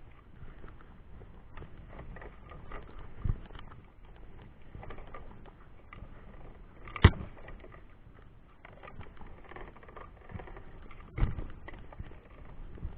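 Scuffing and rustling with three sharp thumps, the loudest about seven seconds in.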